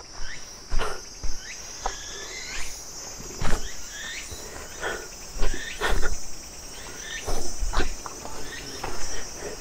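Steady high-pitched drone of insects, with irregular knocks and scuffs of footsteps and handling on a rocky trail, and a few short chirps.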